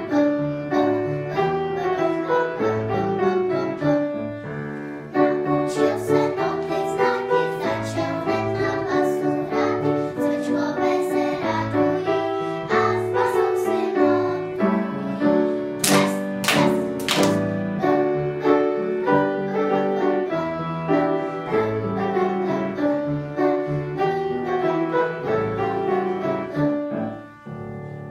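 A group of young girls singing a song together with piano accompaniment; the song ends and the sound dies away near the end.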